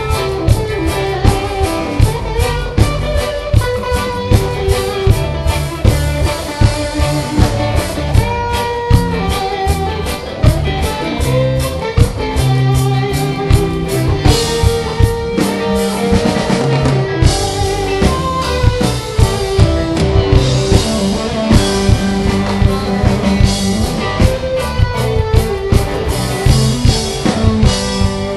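Live reggae band playing an instrumental stretch with no vocals: electric guitar carrying a melodic line over bass and drum kit, with a steady beat of about two drum hits a second.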